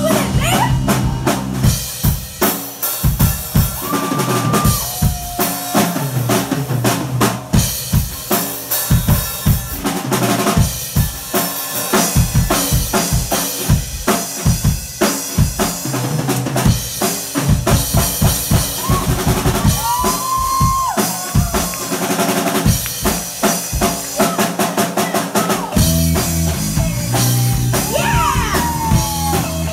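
Live rock band playing an instrumental passage, the drum kit loud and busy with dense snare, rim and bass drum hits, under bass and electric guitar. A few sliding high notes stand out, and the bass grows heavier near the end.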